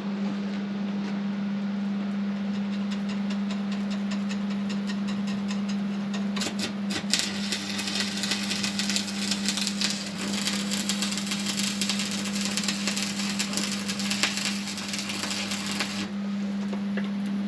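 Stick (arc) welding: the electrode's arc crackles and sizzles steadily as a rod is welded onto a steel bracket, starting about six seconds in and cutting off shortly before the end. A steady low hum runs underneath throughout.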